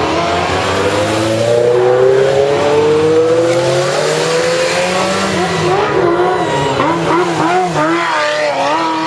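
Ferrari sports car engines passing close by, one accelerating with a steadily rising pitch. About halfway through, an engine is revved up and down in quick blips.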